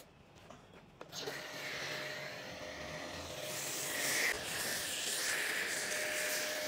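Pressure washer spraying a foam-covered car: a steady hiss of spray with a faint steady whine, starting about a second in after a moment of near silence.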